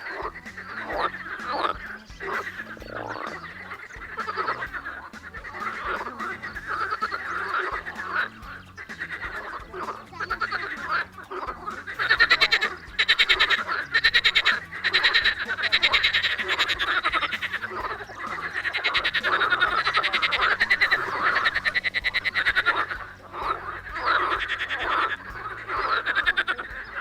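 Frogs croaking in a chorus of many overlapping calls, growing louder and denser, with rapid trilling, from about halfway through.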